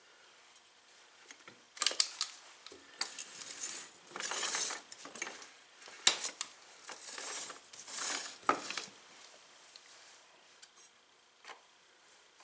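Wrench and metal parts clinking and scraping while nuts and bolts are worked loose on an ATV's rear brake bracket. There are sharp clinks about 2 seconds in, then several rasping stretches of a few seconds each, with more clinks near the middle and again near the end.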